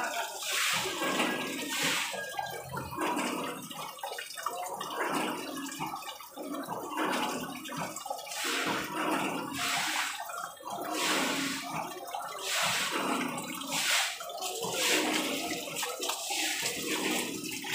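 Water gushing from an open pipe valve and splashing onto a wet concrete floor, swelling and easing in irregular surges.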